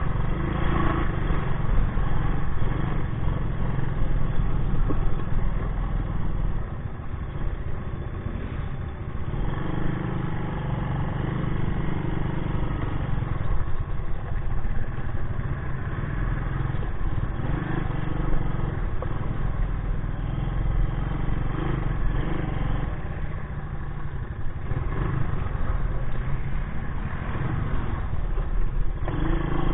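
Honda ATC200S three-wheeler's air-cooled four-stroke single-cylinder engine running steadily as it is ridden along a dirt trail, heard from the handlebars.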